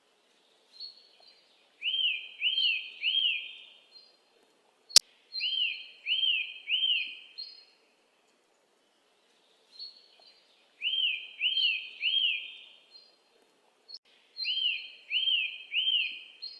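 Bird song: a phrase of a few short high chirps followed by three quick arched whistled notes, repeated four times with clean gaps between. A single sharp click sounds about five seconds in.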